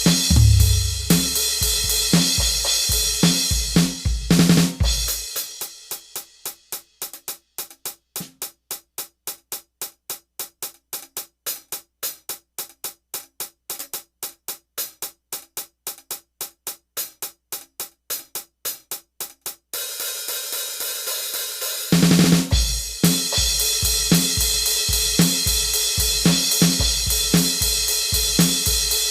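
Rock drum kit playing alone: a full groove of kick, snare and cymbals that drops away after about five seconds to a long stretch of steady hi-hat ticks only. The cymbals come back near the end, and the whole kit returns with a loud hit.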